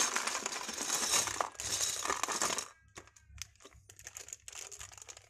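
Plastic packaging crinkling as it is handled for about the first two and a half seconds, then scattered light clicks of loose plastic Lego pieces knocking in a clear plastic tub.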